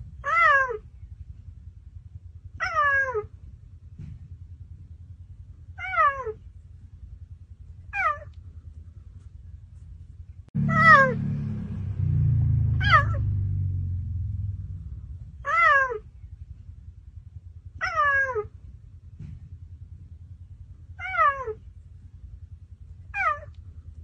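Cheetah calling: ten short, high, meow-like calls, each falling in pitch, repeated every two to three seconds. A low rumble runs underneath and swells for a few seconds around the middle.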